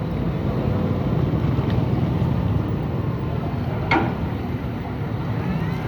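Excavator's diesel engine running steadily with a low rumble, and one brief sharp sound about four seconds in.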